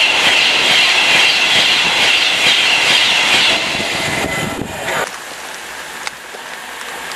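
Virgin Class 390 Pendolino electric train passing at speed close by: a loud rushing whoosh of air and wheels that dies away over about four seconds. About five seconds in it gives way to quieter trackside background with a single sharp click.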